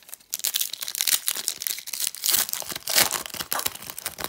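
Plastic wrapper of a 2014 Panini Select football card pack crinkling and tearing as it is ripped open by hand, an irregular crackle that is loudest in the middle.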